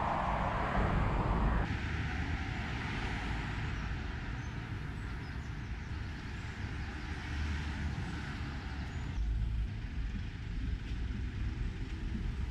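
City street traffic: cars passing on a wide road, a steady hum of tyres and engines. The sound shifts abruptly about two seconds in and again around nine seconds.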